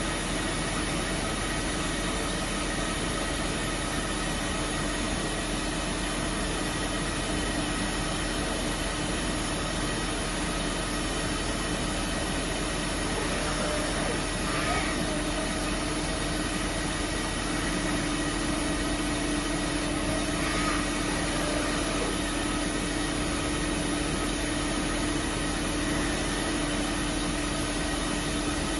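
Voumard 200 CNC internal grinder running steadily: an even machine noise with a constant low hum and several steady higher tones.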